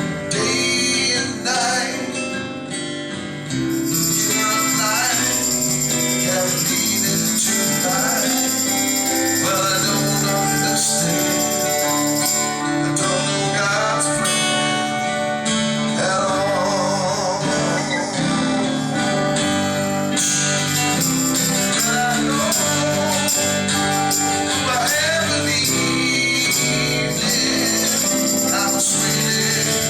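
A live band playing a Christian blues song, with a man singing over guitar and jingling percussion, continuously and at steady volume.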